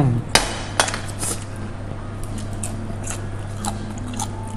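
A ceramic plate set down on a wooden table, with a fork clinking against it: two sharp clinks in the first second, then scattered lighter cutlery clicks.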